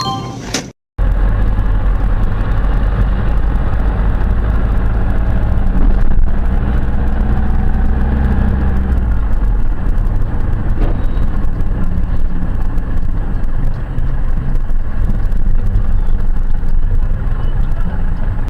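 Loud, steady motor vehicle noise, engine rumble and road noise together, starting after a short moment of silence about a second in. The low rumble eases a little after about nine seconds.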